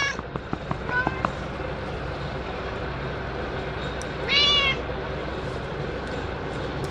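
A domestic cat meows once, a short call of about half a second, about four seconds in. The end of another meow comes right at the start, followed by a few light clicks, all over a steady low outdoor background hum.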